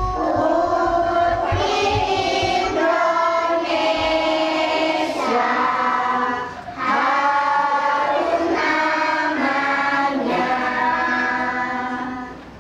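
A group of young children singing together as a choir, in phrases with a short break about six and a half seconds in, dropping away near the end.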